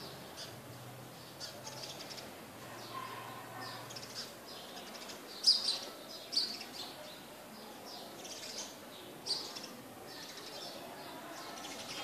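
Small birds chirping: scattered short, high chirps and tweets, a few sharper, louder ones about halfway through and again near three-quarters of the way.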